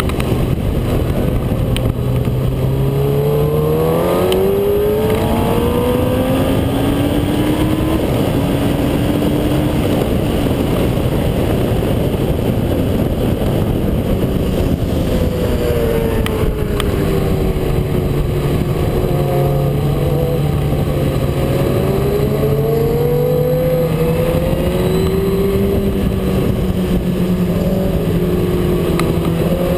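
Motorcycle engine heard onboard under heavy wind rush on the microphone: the engine note climbs in two steps through the first ten seconds, is mostly buried under the wind for a few seconds, then drops and slowly climbs again in the second half.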